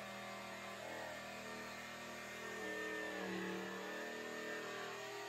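Jigsaw running and cutting a curve through MDF board: a steady motor hum whose pitch shifts slightly as the blade takes the cut.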